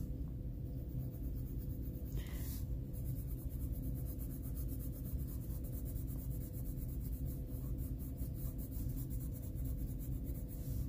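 Coloured pencil shading on paper, scratching in quick repeated back-and-forth strokes that come thickest from about three seconds in, over a low steady hum.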